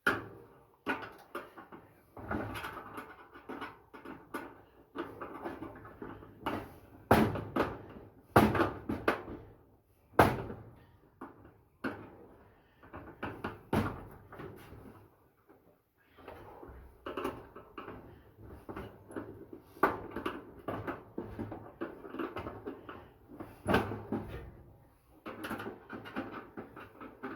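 Flathead screwdriver prying wire connectors off a dryer's heater switches, with irregular clicks, knocks and rustling as the wire harness and metal parts are handled; a brief lull about halfway through.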